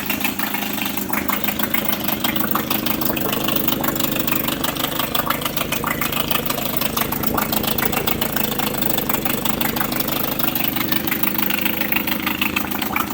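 1999 Suzuki 6 hp two-stroke outboard motor idling steadily just after a cold start, with the choke off.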